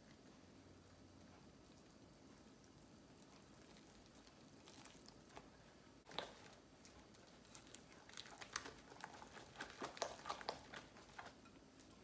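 Wire whisk beating thick chickpea-flour batter in a glass bowl. It is quiet at first. About halfway there is a sharp tap, then a quick run of wet clicks and taps as the whisk strikes the bowl.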